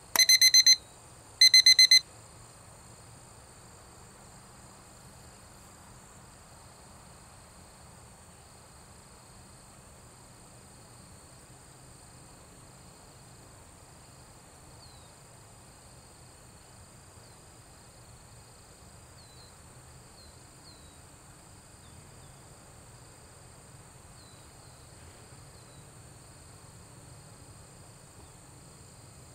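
Two loud, high electronic beeps about a second apart near the start. They are most likely a timer cue marking an observation point in a behaviour-sampling exercise. After that, a steady high insect drone continues with faint bird chirps.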